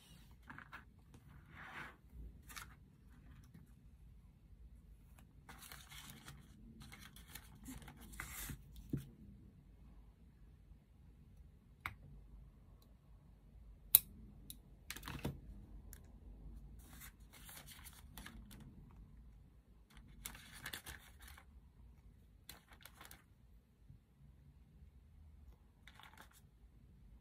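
Small handling noises of candle decorating: quiet scattered scrapes and rustles as wax popcorn pieces are taken from a paper cup and set on a glass container candle with a small metal spoon, with one sharp click about halfway through.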